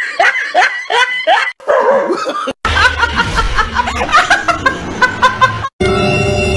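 Laughter: a run of short, rising laughs. After a cut, a woman laughs loudly in repeated high peals. Background music starts near the end.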